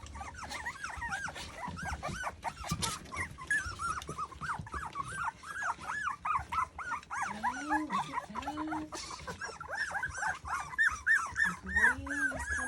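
A litter of three-week-old micro sheepadoodle puppies whining and squeaking, many short high cries overlapping one another, with a few lower, longer calls about two-thirds through and again near the end.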